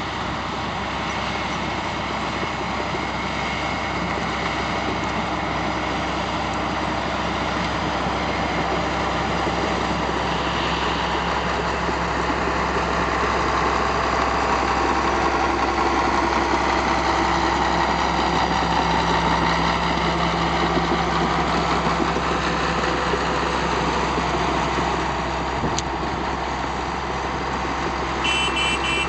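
Caterpillar D6 crawler dozer's diesel engine running under load as it pushes a pile of dirt and brush, with clanking track noise and a swell in loudness through the middle. Near the end its back-up alarm starts beeping.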